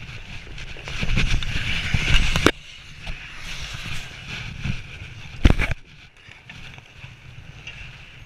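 Bandy goalkeeper's skates scraping the ice and his pads and gloves rubbing close to the microphone as he moves and drops to the ice. The scraping is loudest in the first couple of seconds and cuts off sharply, with a single thump about five and a half seconds in.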